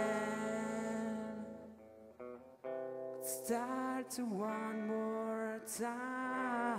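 Live rock band playing a quieter passage: electric guitars holding long sustained notes, with a short drop in level about two seconds in.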